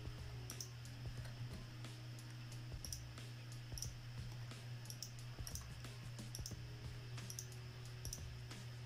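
Computer mouse buttons clicking at irregular intervals, roughly once a second, over a steady low hum.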